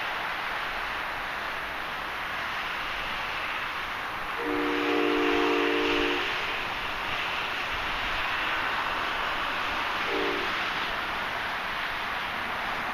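A horn sounds a chord of several steady tones for about two seconds, about a third of the way in, and again briefly near the end, over a steady hiss.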